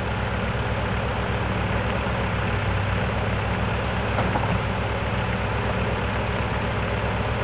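Caterpillar skid-steer loader's diesel engine idling with a steady, fast low throb, under the hiss of heavy rain.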